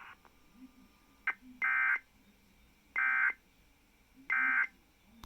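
Emergency Alert System end-of-message tones: three short, identical bursts of buzzy digital data tones, about a second apart, signalling that the alert broadcast is over. A brief click comes just before the first burst.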